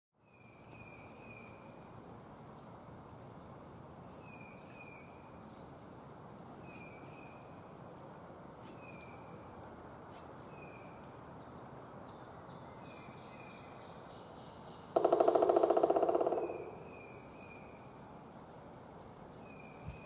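Male pileated woodpecker drumming: one loud, rapid roll of bill strikes on wood lasting about a second and a half, about three-quarters of the way through, tailing off at the end. Small birds call with short repeated notes throughout.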